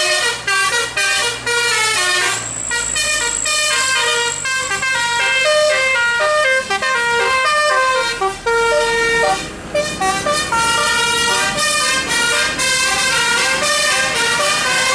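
Tour bus basuri 'telolet' musical air horn playing fast melodic runs of notes without a break, over the low rumble of the bus engine.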